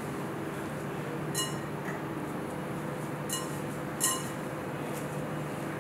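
A glass mixing bowl clinks lightly three times as hands rub shredded kunafa pastry with butter and oil inside it, over a faint steady hum.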